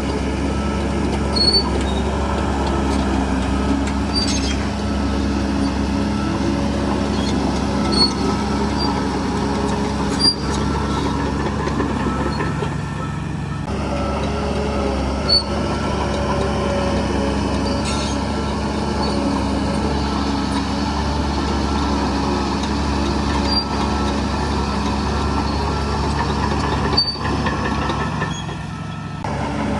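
Bulldozer's diesel engine running steadily, with short squeaks and clicks every few seconds.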